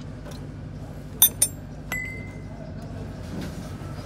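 Sharp metallic clinks as the engine oil drain plug is worked out by hand beneath the car: two quick clinks a little over a second in, then a third that rings briefly, over a steady low workshop hum.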